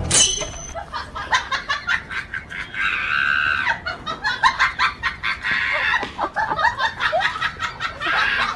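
Hens clucking in quick, short bursts, with a longer drawn-out call about three seconds in.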